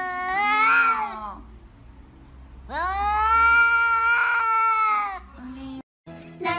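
Tabby cat yowling in two long, drawn-out calls. The first tails off about a second in; the second starts near the middle, lasts over two seconds, and rises then falls in pitch.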